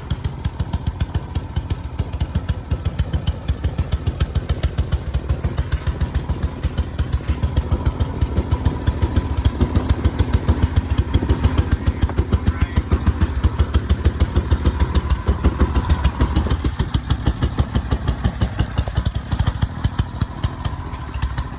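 Engine of a snow-clearing machine running steadily, with a rapid, even pulse.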